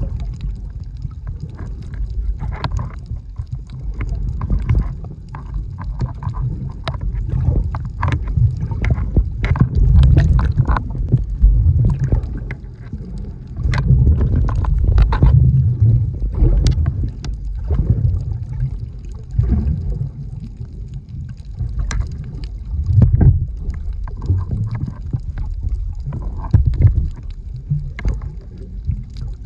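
Water sloshing and rumbling around a camera held underwater, swelling and easing in waves, with scattered sharp clicks and crackles over it.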